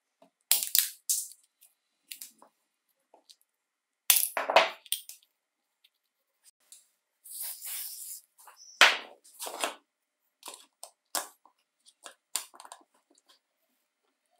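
Close-up handling sounds of a chainsaw's recoil starter parts: sharp snips and clicks as side cutters cut a cable tie off the coiled recoil spring, then plastic clicks and scraping as the spring cassette is handled and pressed into the plastic starter housing. The sounds come as separate short clicks and snaps with quiet gaps, the loudest cluster about a second in.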